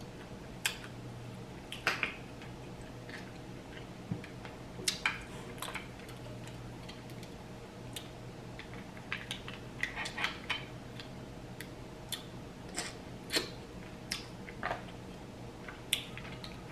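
Mussels being eaten by hand: scattered sharp clicks and wet smacks of shells being handled and pried open and of chewing, over a faint steady hum.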